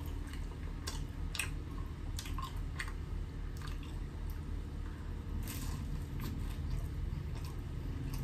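Close-miked chewing of a Jollibee spicy tuna pie: irregular small sharp clicks and crackles as the fried crust is bitten and chewed, with wet mouth sounds.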